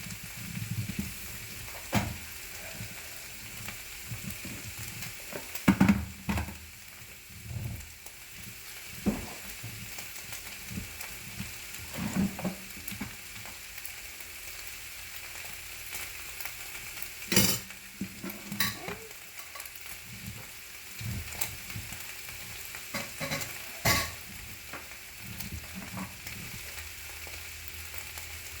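Taco meat sizzling steadily in a frying pan, with a handful of sharp knocks and clicks on top.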